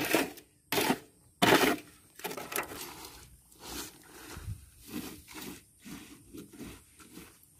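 Footsteps swishing through wet grass and mud, about two steps a second, with three louder rustles in the first two seconds.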